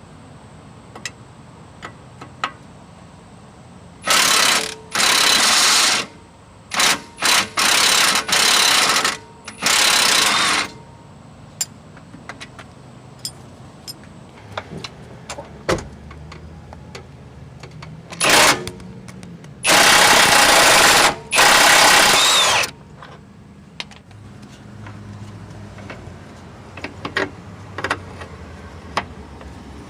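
Impact wrench run in several short bursts, then two longer ones about twenty seconds in, breaking loose and spinning out the 21 mm lower control arm bolts. Light clicks and knocks of tools come between the bursts.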